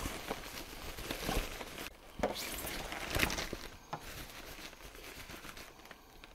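Plastic packing wrap rustling and crinkling as a part is pulled out of it, with a few sharper crackles in the first few seconds, then dying down.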